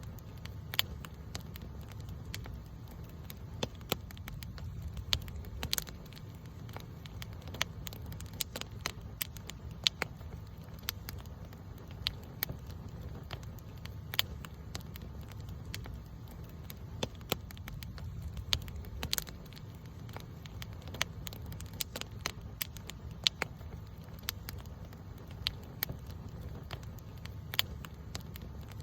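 Campfire crackling: irregular sharp pops and snaps of burning wood, over a low steady rumble.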